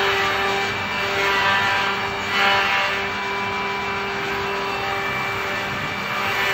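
Andreoni Standard 12 multi-spindle copy-milling machine running: the spindle motors hum steadily while the cutters rout wooden blanks. The cutting noise swells briefly about two and a half seconds in.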